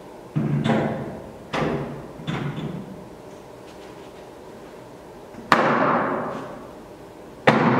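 Aluminium stage legs clattering against the metal frame of a stage deck as they are pushed into the leg holders on the back of the panel. There are a few knocks in the first couple of seconds, then two sharp metallic clangs that ring on, one past the middle and one near the end.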